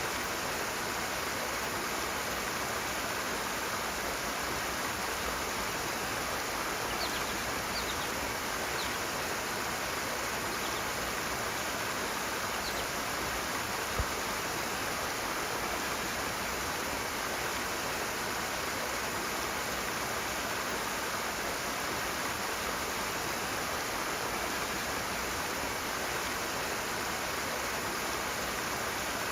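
Rushing water running steadily as an even, unbroken rush, with one brief low knock about halfway through.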